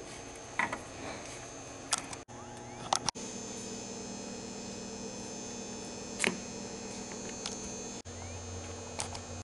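Steady low electrical hum with a faint high whine, broken by a few light clicks and taps and several brief dropouts.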